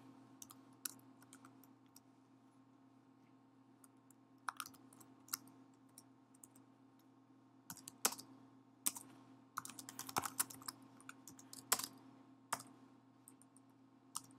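Computer keyboard typing: scattered keystrokes at first, then quick irregular runs in the second half, over a faint steady hum.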